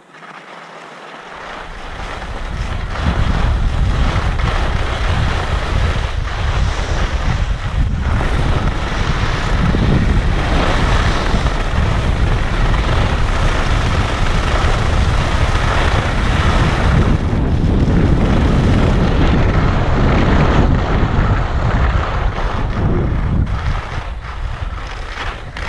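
Wind rushing hard over the microphone. It builds over the first few seconds into a loud, steady rush that eases slightly near the end.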